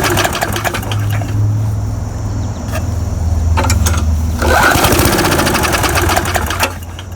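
Murray push mower's small engine cranked by its recoil starter cord, turning over in a fast chug without catching: a no-start. One pull is ending as the sound begins, and a second comes about halfway through and lasts about two seconds. A steady low hum runs underneath.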